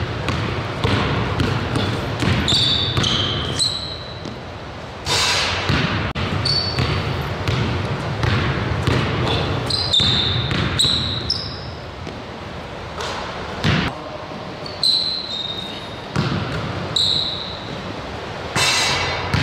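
A basketball being dribbled hard on a hardwood gym floor, a quick run of bounces that echo in the large hall. Basketball sneakers squeak on the court again and again as the player cuts and changes direction.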